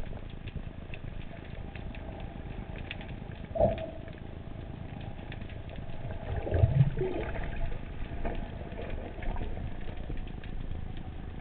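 Underwater sea ambience: a steady crackle of small clicks over a hiss. There is a single knock about three and a half seconds in, and a louder stretch of low rumbling with wavering tones around six to seven seconds in.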